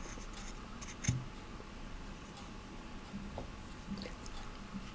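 A homemade stone axe, a stone wired to a wooden stick, being handled and turned over on a wooden tabletop: quiet scraping with one light knock about a second in and a few faint clicks later.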